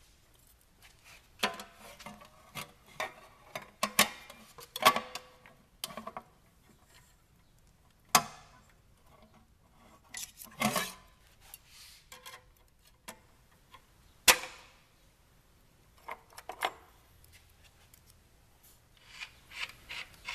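Metal exhaust springs being unhooked from a snowmobile's Y-pipe with a spring-puller tool: scattered metallic clinks and scrapes, with a few sharp clinks that ring briefly.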